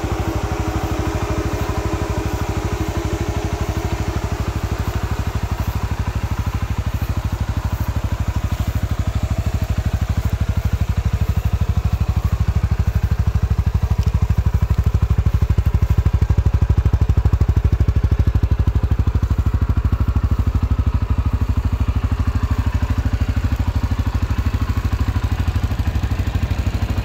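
CFMOTO X520 ATV's single-cylinder four-stroke engine idling steadily in neutral.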